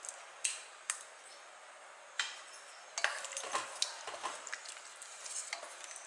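A ladle knocks against the metal cooker pot three times while stirring soup. About halfway through, the soup starts bubbling with a quick run of small pops as it heats back toward a simmer.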